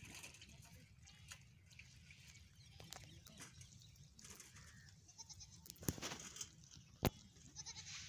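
Goats bleating faintly, with scattered light clicks and two sharp clicks near the end that are the loudest sounds.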